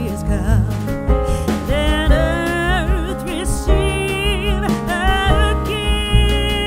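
Background music: a song with a singing voice over instrumental accompaniment and a steady beat.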